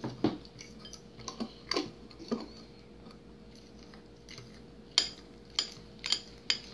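Metal fork clinking and scraping against a ceramic bowl while stirring a dry Bisquick-and-milk mix: a quick run of sharp clicks, a pause of about two seconds, then four more clicks near the end.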